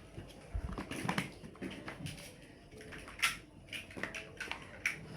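Plastic toy building bricks being handled and pressed together: a run of irregular light clicks and taps.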